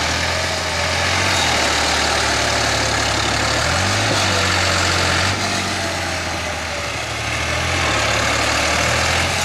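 Fiat Ghazi tractor's diesel engine working hard as it drags a cultivator through flooded paddy mud, the wheels churning water and mud. The engine note rises and falls a few times, with a rise about four seconds in.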